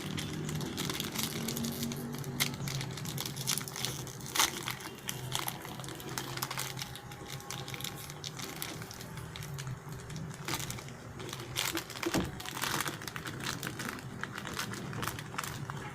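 Crinkling packaging of a Choki-Choki chocolate snack pack, handled and torn open, with many irregular sharp crackles.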